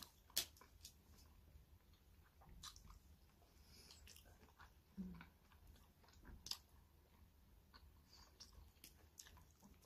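Faint close-up chewing of a hamburger, with a handful of sharp wet mouth clicks and smacks.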